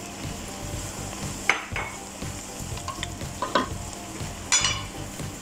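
Chicken in tomato sauce sizzling in a stainless steel pot, with a few sharp clinks against the pot as spices are tipped in from a plate; the last clink, near the end, rings briefly.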